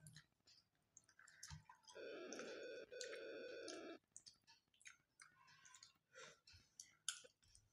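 Very faint clicks and smacks of eating by hand: mouth sounds and fingers working rice on a steel plate. Between about two and four seconds in, a faint steady tone with overtones sounds and then stops.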